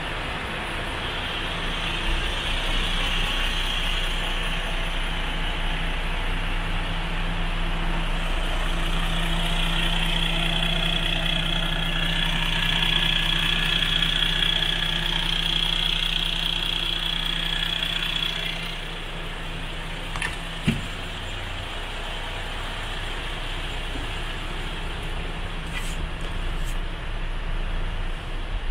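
MAN TGX 440 truck's common-rail turbo diesel engine idling steadily. Its level drops a little about two-thirds of the way through, and there is a single sharp knock shortly after.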